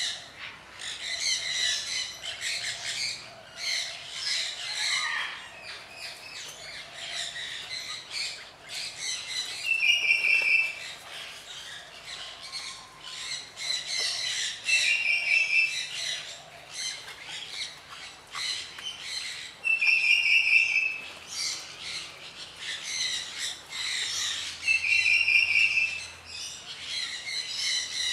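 Birds chirping and calling throughout. A loud, short, stuttering call repeats about every five seconds from about ten seconds in.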